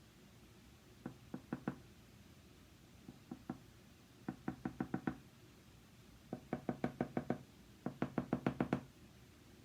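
Quick runs of light knocks on a hard surface, about eight a second: a short run of four about a second in, then three, then longer runs of seven to nine taps, the last two the loudest.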